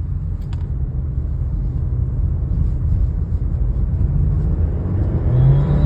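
Subaru Levorg running, a steady low exhaust rumble that slowly grows louder.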